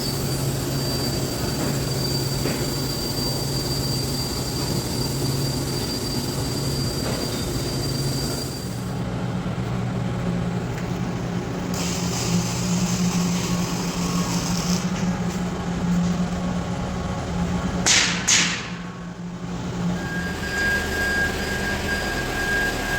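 TIG welding arc on stainless steel pipe, a steady buzzing hiss with a constant hum whose pitch shifts a few times. Two sharp cracks come about three quarters of the way in.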